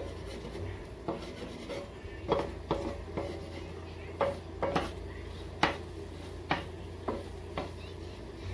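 A wooden spatula stirring and scraping scrambled eggs around a frying pan, with about a dozen irregular knocks and scrapes against the pan, the loudest a little past halfway.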